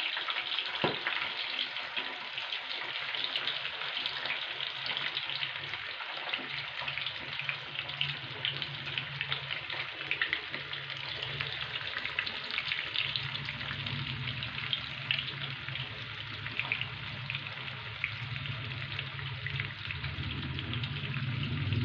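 Marinated chicken kebab pieces deep-frying in hot oil in a pan: a steady crackling sizzle, with more pieces being dropped into the oil.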